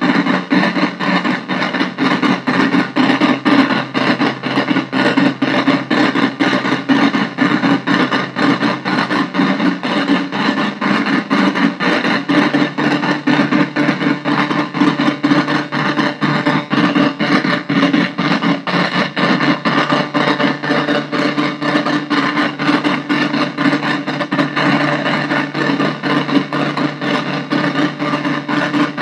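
Analog synthesizer noise drone from an Arturia MicroBrute cross-patched with a Casper Electronics Nova Drone, played through a bass practice amp: a dense, noisy held drone with a fast pulsing flutter, its low note stepping down a little about ten seconds in.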